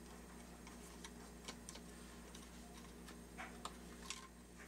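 Faint, irregular clicks and ticks of a small screwdriver and fingers working the screws of a small plastic gearbox housing, with a few sharper clicks in the second half.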